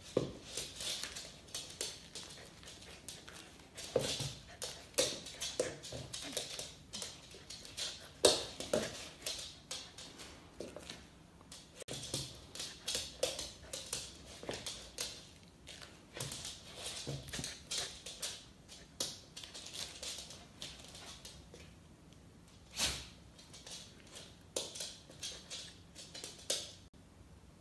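Poodle puppy jumping and snapping at a hand-held carrot: an irregular run of quick clicks and taps from its teeth on the carrot and its claws on a wooden floor.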